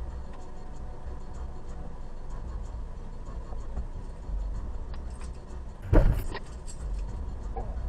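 Steady low rumble of a car standing with its engine running, heard inside the cabin. About six seconds in there is one sudden loud knock.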